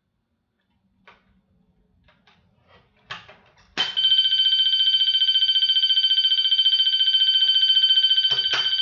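A few faint handling clicks, then a Wheelock MT-24-MCW multitone horn strobe starts sounding about four seconds in: a loud, steady, shrill electronic tone with a fine flutter, held without a break, on a new tone setting being tried.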